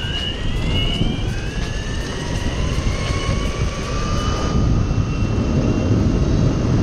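Electric skateboard motors of a belt-drive Riptide R1 and a hub-motor Meepo whining as they accelerate hard from a standstill, the whines rising in pitch over the first few seconds. Under them a loud low rumble of wind on the microphone and wheels on asphalt builds and takes over as speed rises.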